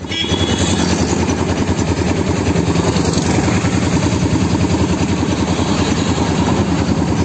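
A vehicle's engine running steadily with a fast, even throb while travelling along a road, with some wind rush.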